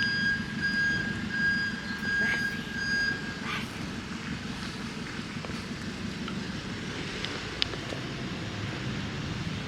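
Steady street traffic noise, with a thin high whine over it for the first three seconds and a single sharp click a little before eight seconds.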